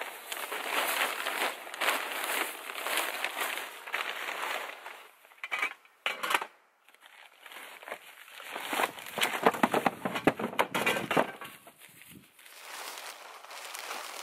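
Camping gear being handled at a plastic sled on snow: bags and tent fabric rustle and crinkle and the snow crunches. The sound comes in two spells with a lull of about two seconds between them.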